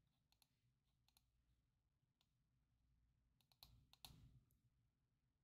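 Near silence with a few faint computer mouse clicks, most of them bunched about three and a half to four and a half seconds in.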